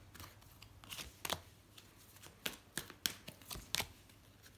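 Oracle cards being handled and laid down on a spread: a scatter of short, faint card clicks and slides.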